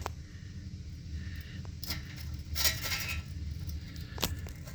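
Small hard parts being handled while a toilet flange is shimmed and measured: a few light clicks, clinks and short scrapes, with a faint low hum underneath.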